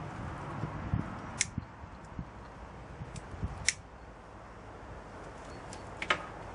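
Hands lighting a small copper spirit burner with a match: a few light clicks and soft taps, the sharpest about three and a half seconds in.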